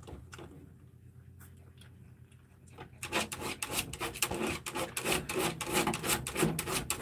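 Quiet for about three seconds, then a dense, rapid scratching and rasping starts and keeps going: a dog's claws scraping at a plastic playpen panel as she stands up against it.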